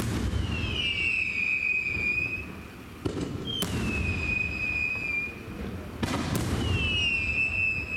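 Aerial fireworks: three high whistles from climbing shells, each falling slightly in pitch over about two seconds. Sharp cracks come about three and six seconds in as shells burst, over a steady low rumble.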